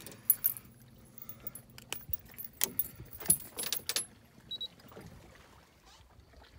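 Metal clinks and jingles from a bladed fishing lure's blades and hook being worked out of a bass's mouth. The clicks come in two clusters, a pair just after the start and a run of sharper clinks between two and four seconds in.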